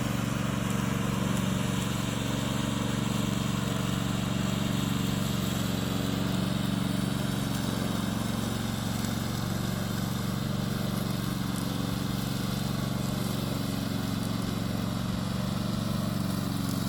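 Remote-controlled lawn mower running steadily, a constant low engine hum that holds at one pitch.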